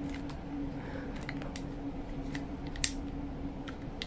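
Light plastic clicks and handling as a replacement silicone bite valve is pushed into a Brita filter bottle's cap, with one sharper click about three seconds in, over a steady low hum.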